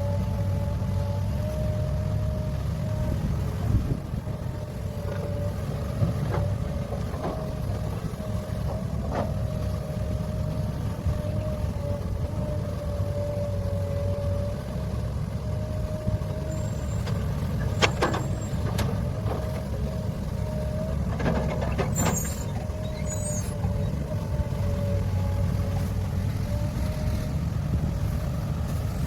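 Heavy diesel earthmoving machinery running steadily, a deep engine drone with a steady whine over it. A few sharp metallic knocks come through, about two-thirds of the way in.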